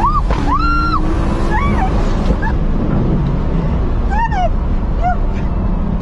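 A woman shrieking in short rising-and-falling cries, about six of them, over the steady drone of a fast-moving car's engine and road noise in the cabin.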